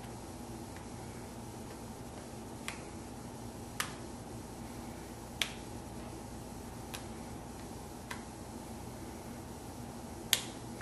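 Six small sharp clicks at irregular intervals, the loudest near the end, from handling the phone and tools while smoothing a screen-protector film, over a steady low hum.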